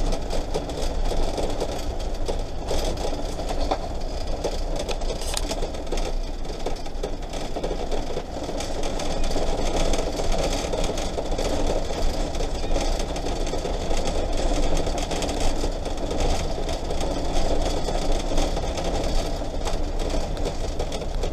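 Camper van driving slowly over an unpaved gravel track, its engine running under a steady rattle from the dashboard.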